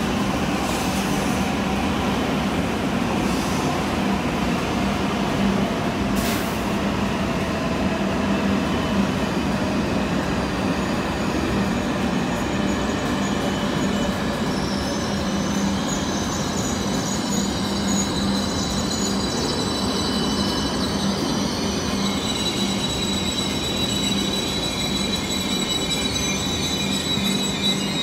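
JR East E7 series Shinkansen train rolling slowly past as it brakes to a stop: a steady rumble of wheels and running gear with a low hum. From about halfway through, a high brake squeal comes in and grows strongest near the end.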